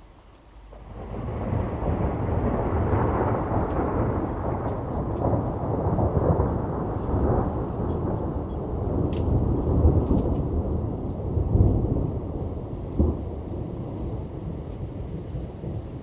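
Long roll of thunder that swells up about a second in, rumbles deep and heavy for many seconds, then slowly dies away near the end.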